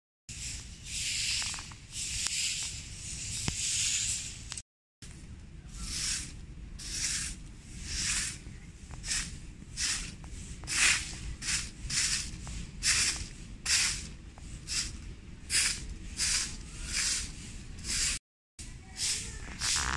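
A long-handled twig broom sweeping sandy dirt and dry leaves, with repeated scraping swishes at about one and a half strokes a second.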